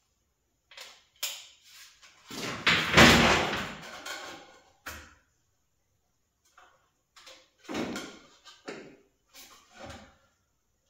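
Clanks and knocks of sheet metal and hand tools being handled: a few light knocks, then one heavy clank about two and a half seconds in, and a run of lighter knocks and clicks later on.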